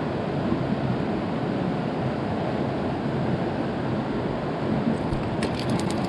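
Stream water rushing steadily over rocks, with a few light clicks near the end.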